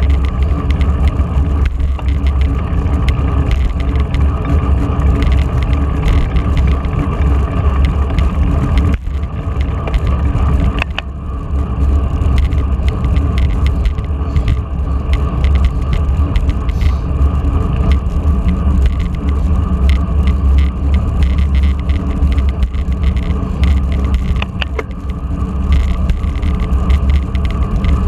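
Wind rushing over the microphone of a camera riding on a moving road bicycle, a loud, steady low rumble, mixed with tyre and road noise from the bike rolling at speed.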